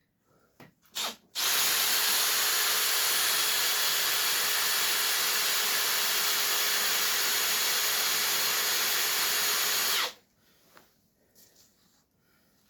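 Power drill with a cobalt M42 bit, in plain drill mode rather than hammer, boring a pilot hole into a sheared bolt: a couple of light clicks, then the drill runs steadily for about eight and a half seconds and stops suddenly.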